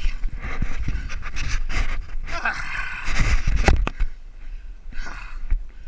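Wind buffeting the deck-mounted camera's microphone while water rushes and splashes along a Laser dinghy's hull, loudest between about two and four seconds in, with a couple of sharp knocks near the four-second mark.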